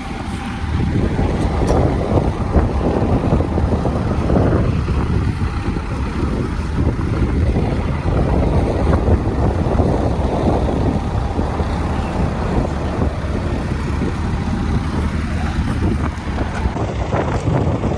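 Tractor engine running steadily under load while pulling a plough.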